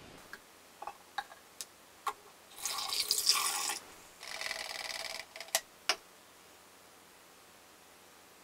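Wetting-agent solution from black-and-white film developing poured through a plastic funnel into a graduated cylinder. There is one loud splashing pour of about a second, then a weaker steadier trickle, with light plastic clicks and knocks before and after.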